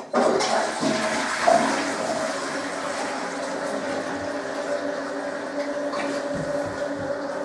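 Toilet flushing: a sudden rush of water that settles into a steady hiss with a faint steady tone as the cistern refills.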